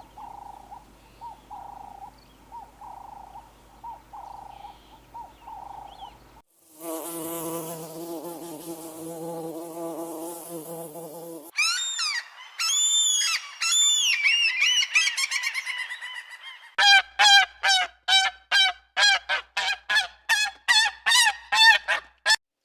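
A series of different animal calls cut one after another: first a string of short pulsed calls, then a rough pitched call for about five seconds, then chirps that rise and fall, and finally quick repeated calls, about four a second.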